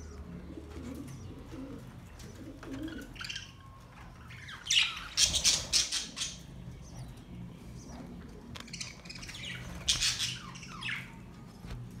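A flock of budgerigars chirping and chattering, with two louder bursts of calls about five and ten seconds in, over a low steady hum.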